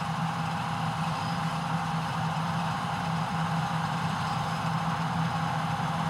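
John Deere T560 Hillmaster combine harvester running steadily while cutting winter barley: a constant engine drone with a thin, steady high whine over it.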